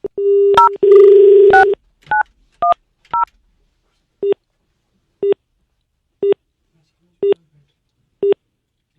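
Telephone dial tone, then a quick run of about five keypad (DTMF) tones as a number is dialled. After that come short single beeps about once a second while the call waits to connect.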